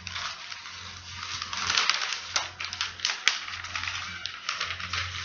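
Sheet of pattern paper being folded and handled, crinkling and rustling in quick irregular crackles, loudest in the middle, with a low hum underneath.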